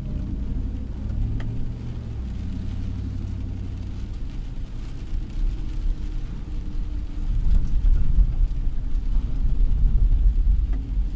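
Car driving slowly, heard from inside the cabin: a low engine and road rumble with a faint engine tone early on, getting louder in the second half.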